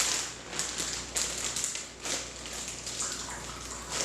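Water dripping and trickling into a bowl as hot cooked broccoli and cauliflower are pressed to squeeze out their cooking water, with a few short splashes.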